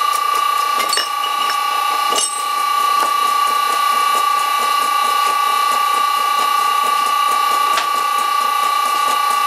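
VFD-driven electric motor of a vintage Karger bench lathe running at 60 Hz, giving off a steady high whine, while a center drill cuts into the spinning metal workpiece. A few sharp clicks come about 1, 2 and 8 seconds in. The motor is starting to vibrate on this run, which the owner puts down to the motor's unbalance.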